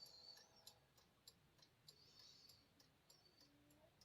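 Near silence, with faint, scattered ticks.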